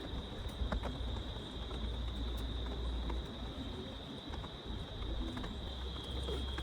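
Steady, high-pitched insect chorus over a low rumble, with a few scattered faint clicks.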